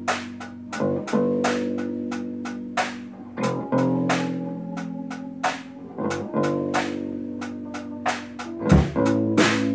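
Instrumental music: sustained chords that change every few seconds, with regular drum hits over them.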